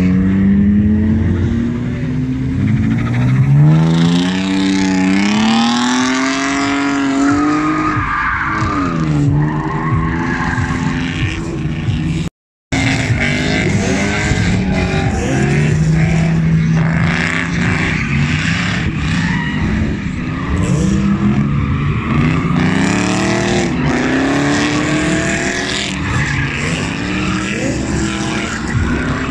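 BMW E36 drift cars sliding through a corner: the engine revs up and down over and over while the rear tyres squeal and skid. The sound cuts out briefly about halfway through.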